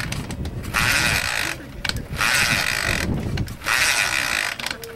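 Vintage motorcycle being kick-started: four kicks of the kick-start lever, each a rasp of about a second from the kickstart gear and the engine turning over, with short pauses between. The engine does not catch.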